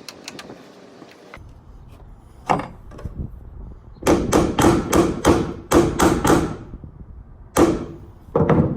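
Hammering on metal: a single sharp knock, then a quick run of about eight ringing strikes over two seconds, then two more near the end.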